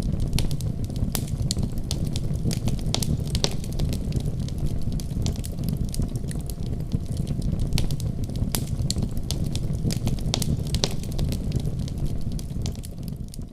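Wood fire crackling in a fireplace: a steady low rumble of flames with frequent sharp snaps and pops, fading out near the end.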